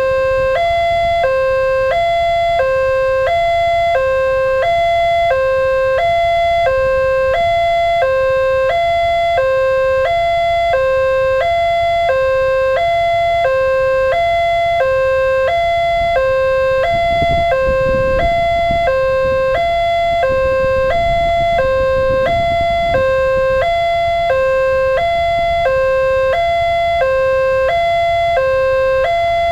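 Electronic level-crossing warning alarm from the loudspeaker on the crossing post, sounding two alternating tones, a higher and a lower, at about one pair a second. This is the signal that the barriers are down for an approaching train. A low rumble swells and fades midway through.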